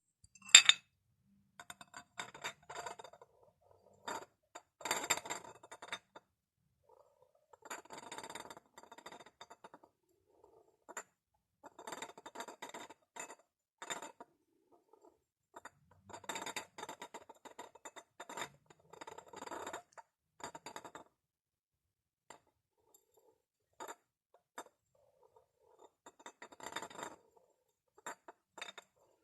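Glass bottles tapped and clinked, each strike ringing with a clear pitch, in bursts of rapid taps separated by short pauses. The sharpest and loudest clink comes about half a second in.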